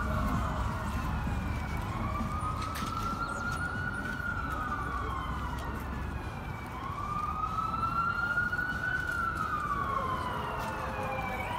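An emergency vehicle's siren wailing, its pitch slowly rising and falling in cycles of about five seconds, over a low background rumble.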